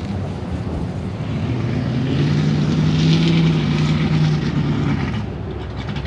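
A motor vehicle's engine passing close by, growing louder for about two seconds and then fading away.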